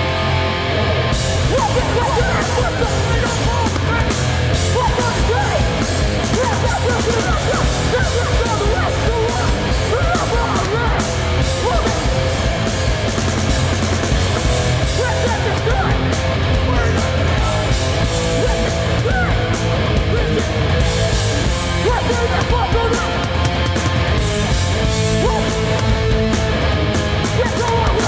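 Hardcore band playing live at full volume: distorted electric guitars, bass and drums with shouted vocals over them.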